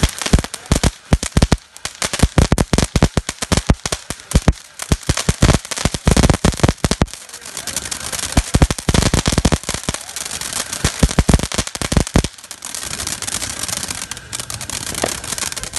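Flying Ants Cannon consumer firework going off: a spark fountain with dense, rapid crackling pops. About twelve seconds in the popping stops, leaving a steady hiss of sparks.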